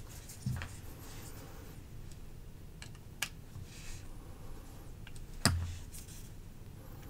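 A few scattered light clicks and taps of small metal parts: a folding knife being handled while its pivot screw is turned with a small screwdriver, the screw being tightened to take out blade play. The loudest is a sharper click with a dull knock under it about five and a half seconds in.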